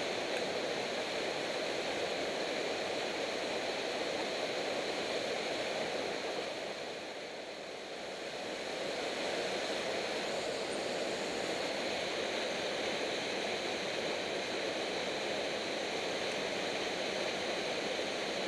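Small waterfall of a mountain torrent pouring into a rock pool: a steady rushing of water that softens briefly about seven seconds in.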